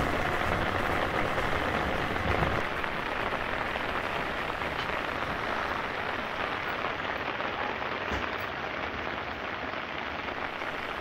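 Steady rain falling, an even patter of drops that eases slightly toward the end.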